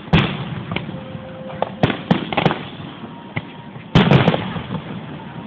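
Aerial fireworks bursting at a public display: a series of sharp bangs, each trailing off. One comes just after the start, three more about two seconds in, and a loud cluster about four seconds in.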